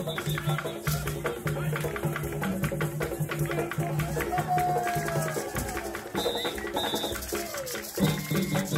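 Live African-style percussion music: hand drums and a shaker played in a driving rhythm over a repeating low bass figure.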